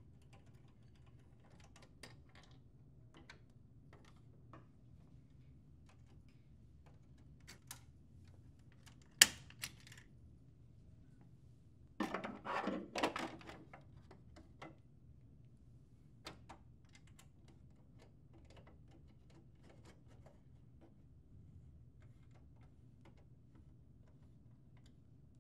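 Small clicks and taps of a key tool and plastic parts being handled on a printer's side panel. There is one sharp click about nine seconds in, and a short clatter of plastic about twelve seconds in as a grey cover is lifted off.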